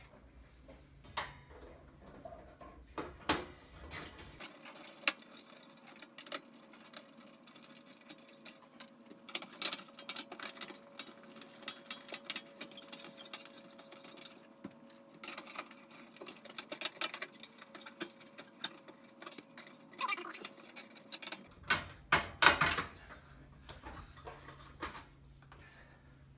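Socket ratchet clicking in irregular runs as 1/4-inch nuts are backed off the sheet-metal bottom pan of a gas oven, with light metallic clinks. The loudest cluster comes near the end.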